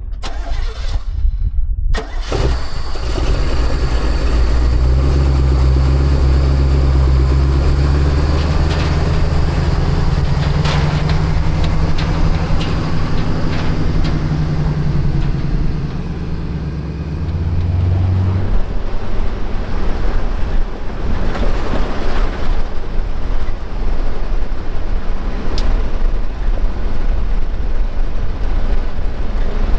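Recovery truck driving, its engine humming steadily under rough road and tyre noise, the engine note shifting about two-thirds of the way through.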